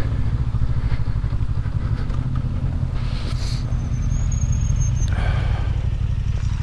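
Honda CB500X parallel-twin motorcycle engine running steadily at low revs, without revving.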